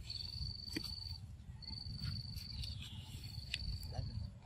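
An insect trilling in high, even bursts of about a second each, repeating every two seconds or so, over a low steady rumble with a few faint clicks.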